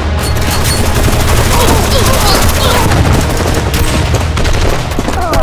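Rapid, continuous gunfire sound effects: a fusillade of shots, as in an action-film shootout, with a few falling whistle-like glides over the shots.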